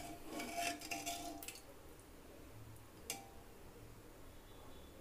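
Metal kitchen utensils clinking: several light ringing clinks in the first second and a half, then a single tap about three seconds in.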